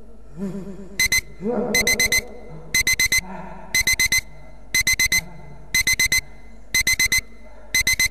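Digital alarm clock beeping in quick groups of four short, high beeps, repeating about once a second; it starts about a second in.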